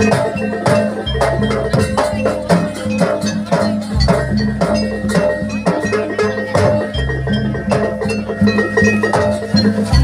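Gamelan music accompanying a barong dance: rapid, even strokes of struck metal keys and drum over sustained low gong tones.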